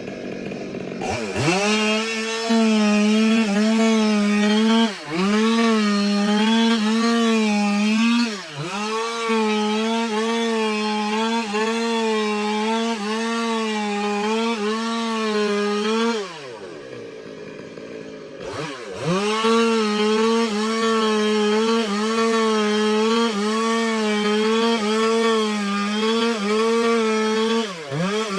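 Stihl two-stroke chainsaw ripping a log lengthwise into planks, held at high revs under load, its pitch dipping briefly every few seconds as the cut is worked. For about two seconds past the middle it drops back toward idle, then revs up into the cut again.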